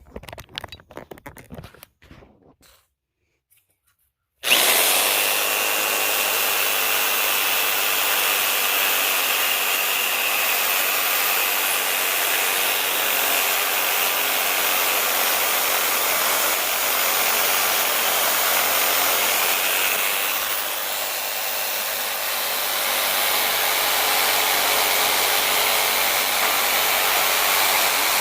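Reciprocating saw starting suddenly about four seconds in and running steadily as it cuts through pallet wood. A brief tail of music comes before it.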